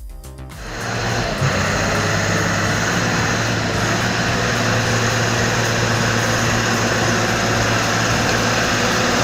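Heavy machinery running steadily under load: a steady low hum under a dense, even rush of noise. It swells up under a second in and then holds level.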